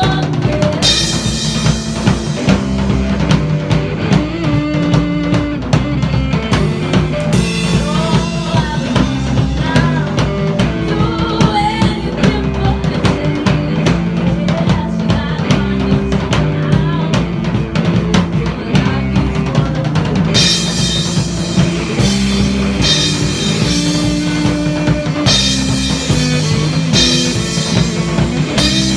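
Live indie rock band playing: drum kit, electric bass and electric guitar, with a woman singing in parts. About twenty seconds in the playing grows brighter, with more cymbal.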